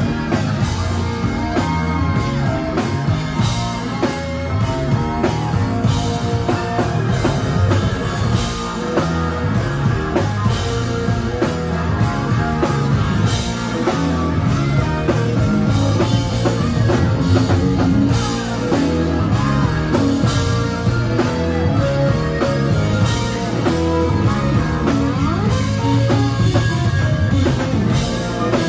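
Live rock band playing an instrumental passage: acoustic and electric guitars over a drum kit, with keyboard and saxophone.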